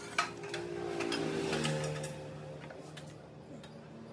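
Metal clinks and knocks from tools and an exhaust silencer being fitted to a Honda Benly CD125 motorcycle, over background music.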